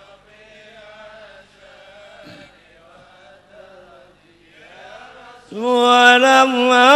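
Arabic devotional qasidah chanted by male voices: a quieter sung line with wavering pitch, then a single man's voice comes in loud and close on the microphone about five and a half seconds in, with a wavering, ornamented melody.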